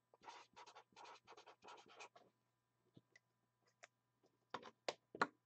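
Faint scratching of a pen writing on paper, a quick run of short strokes over about two seconds, followed near the end by three sharper clicks.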